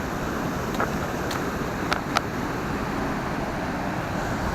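Water pouring over a spillway in spring flood, a steady rushing. A few brief clicks come through in the first couple of seconds.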